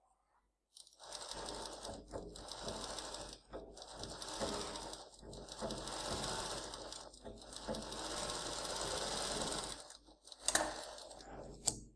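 Industrial flatbed sewing machine running and stitching fabric in several runs of a few seconds each, with brief stops between them. Two sharp clicks come near the end.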